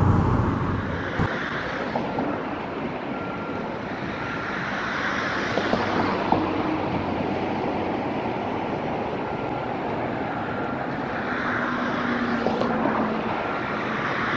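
Steady road traffic noise with wind on the microphone, and a faint high beep repeating now and then.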